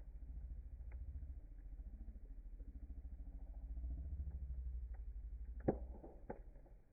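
Fire crackling, with two sharp pops near the end, over a low, evenly pulsing rumble.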